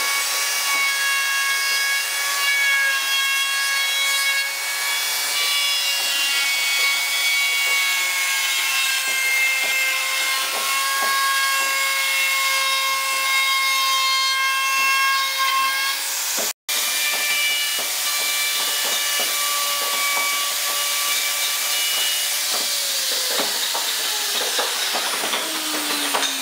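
Handheld electric wood router running with a steady high whine, its bit cutting along the edge of the carved wood. A brief break comes about two-thirds of the way through, then the motor runs again and winds down with falling pitch near the end.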